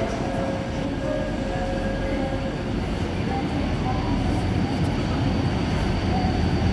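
A train approaching the platform, its rumble growing louder toward the end, with a thin steady high whine coming in about halfway through.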